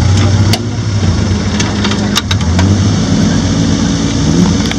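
Suzuki SJ410's small four-cylinder petrol engine running under load as the 4x4 crawls over rocks, its pitch rising a little past halfway as it is revved harder. A few sharp clicks sound over it.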